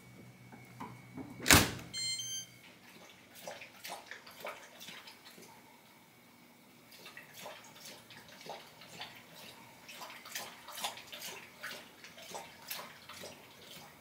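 Dishwasher door pushed shut with one loud thunk about a second and a half in. Faint scattered clicks and rustles of handling follow.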